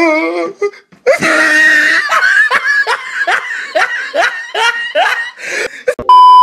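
A young woman laughing in a long run of short rising giggles. Near the end a loud steady beep tone cuts in.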